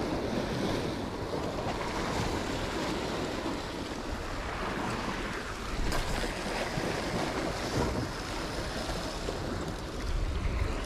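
Sea surf washing against rocks, with wind on the microphone.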